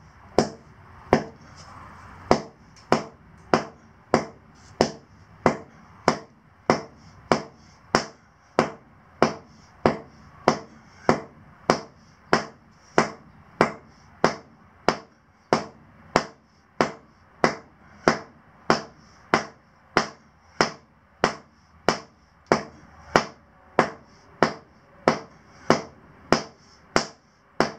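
Short-handled sledge hammer striking the asphalt of a driveway in steady, even blows, a little under two a second, pounding down a hump around a drilled anchor hole.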